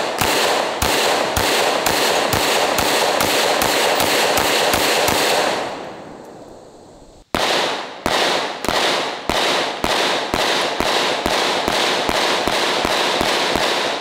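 10mm semi-automatic pistol fired rapidly at close range, about two to three shots a second, the reports running into one another. The firing trails off about six seconds in and picks up again with another fast string a second later, stopping near the end.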